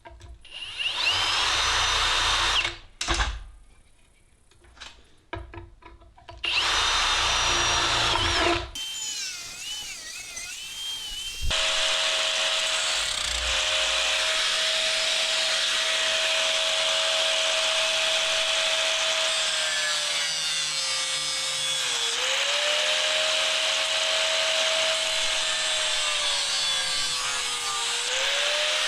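A power tool cutting a 4-inch opening in metal: two short loud bursts, a brief screechy scraping, then a long steady cut with a motor whine that sags in pitch twice near the end as it loads down.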